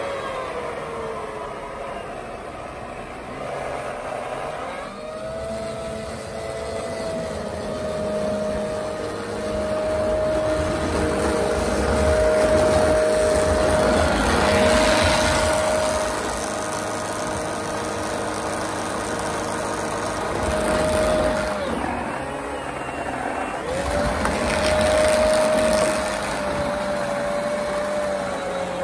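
An RC snowblower's 3660 brushless motor spinning its impeller with a steady high whine. It winds down at the start, spins back up about five seconds in, drops out about three-quarters of the way through and spins up again a couple of seconds later. A rushing noise of snow being thrown swells around the middle.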